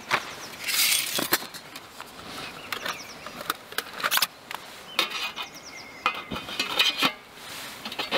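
Folding flat-pack metal wood-burning camp stove being unpacked and assembled: a run of light metal clicks and clinks as its perforated panels are unfolded and slotted together, with a rustle of its fabric pouch about a second in.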